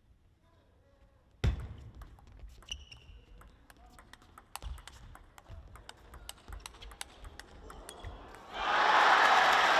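A table tennis rally: the ball clicking off the bats and the table in a quick irregular series of sharp strikes, then the crowd breaks into loud applause near the end.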